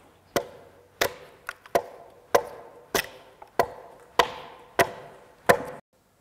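Axe chopping into a log, hewing a notch by hand: about nine sharp strikes, roughly one every two-thirds of a second, each with a brief ring. The chopping cuts off abruptly near the end.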